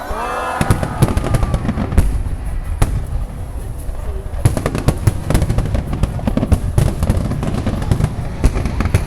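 Fireworks finale barrage: a dense run of shell bursts with sharp cracks and booms, many a second, over a continuous low rumble, starting about half a second in.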